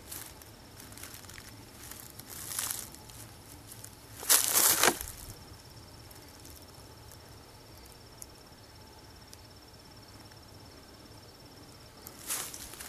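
A high-pitched insect trill, steady and finely pulsing, starts about five seconds in and stops near the end. Just before it, a short loud rustling burst is the loudest sound, with fainter rustles about two seconds in and near the end.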